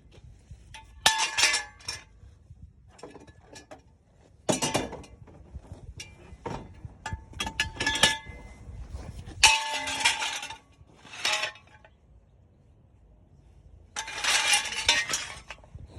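Metal tools and equipment clanking and clinking as they are handled, in about six separate bursts of ringing clatter with quiet gaps between.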